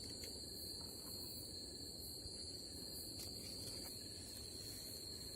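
Night insects, crickets among them, calling in a steady high-pitched drone, with a faint steady low rush underneath.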